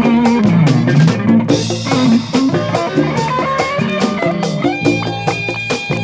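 Instrumental stretch of a record played from vinyl: guitar lines over a moving bass line and drum kit, with no singing.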